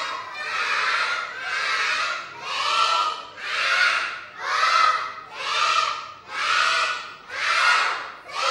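A class of young children counting aloud together in Thai, chanting one number about every second.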